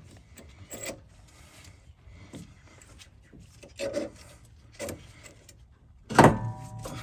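Scattered knocks and scrapes of metal tools and brake parts being handled, with a loud metallic clank about six seconds in that rings briefly.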